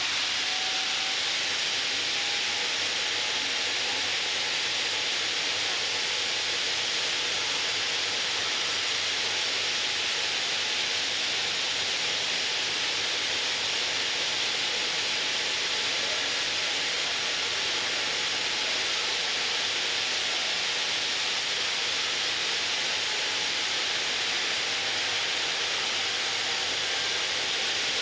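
Ring-system granite block-cutting machine running, a steady hiss with a faint constant whine underneath.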